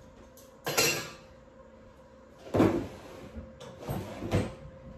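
A wooden kitchen drawer being pulled open and pushed shut, with a few sharp knocks and slides as a spatula is taken out: one about a second in, another past halfway and two close together near the end.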